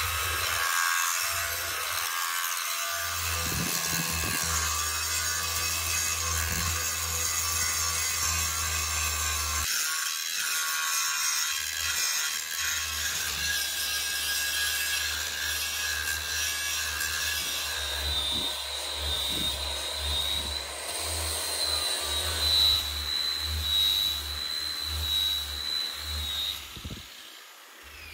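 A power tool working metal: a harsh grinding hiss over a steady motor hum. The hum drops out for about two seconds midway and comes back, and a thin high whine joins in the last third.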